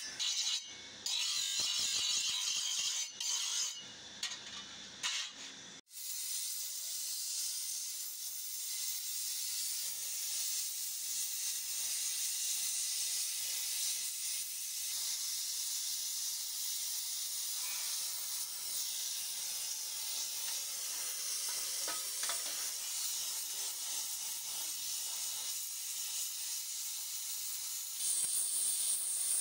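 A cast brass piece pressed against a motor-driven buffing wheel, a rough rubbing noise that comes and goes. After about six seconds a gas brazing torch takes over, a steady high hiss of the flame as it heats brass parts being joined, growing louder near the end.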